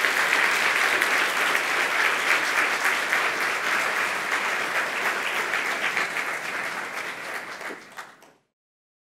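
Audience applauding, a dense continuous clapping that eases slightly and then cuts off abruptly about eight seconds in.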